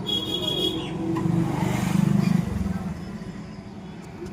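A short high beep, then a motor vehicle's engine rumble that swells to its loudest about two seconds in and fades away, as of a vehicle passing.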